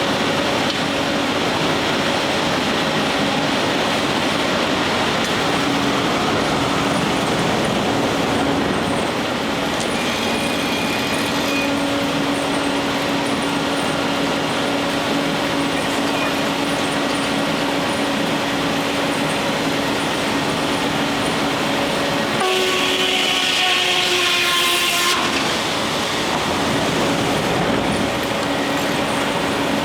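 Steam-powered sawmill machinery running steadily with a constant low hum. A steam whistle blows for about two and a half seconds near the end.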